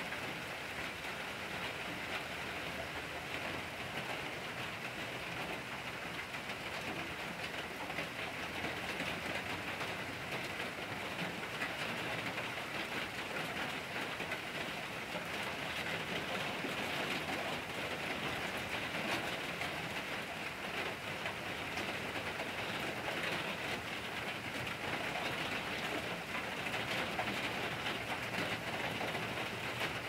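Steady rain falling on the trees and ground, an even hiss with no break, getting a little louder from about eight seconds in.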